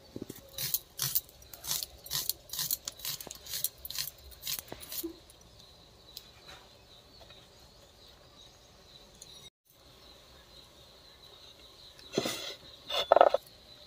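Onion being sliced on a bonti, the upright curved blade of a Bengali kitchen: a quick run of crisp cuts, about three a second, for the first five seconds. Near the end comes a short, louder handling noise.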